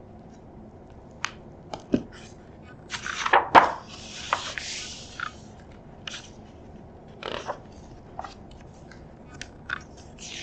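Hardcover picture book being opened and its pages turned by hand: scattered small clicks and paper rustles, with a louder swish a little over three seconds in followed by about a second of paper sliding.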